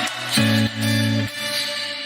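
Background music: a pop song's closing held notes over bass, starting to fade out near the end.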